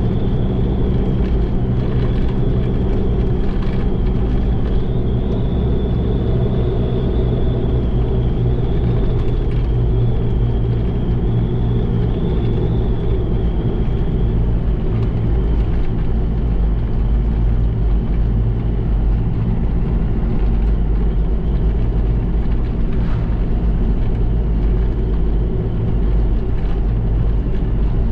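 Freshly rebuilt Mitsubishi Pajero 4D56 four-cylinder turbo-diesel engine running steadily while the vehicle is driven, as the engine is being run in. A thin high whine sits over it and stops about halfway through.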